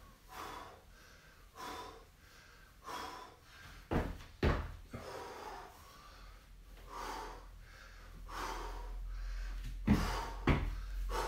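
A man breathing hard in short puffs while doing weighted squat walks, with two pairs of heavy foot thumps on rubber gym flooring, about four seconds in and again near the end.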